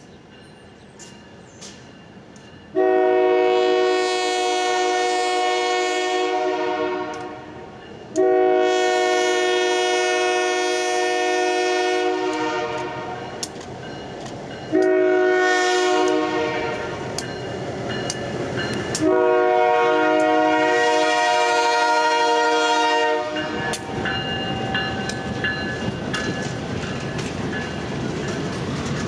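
Air horn of an EMD SW1500 switcher locomotive sounding four long blasts as it approaches. After the last blast, the freight cars roll past with steel wheels running over the rails.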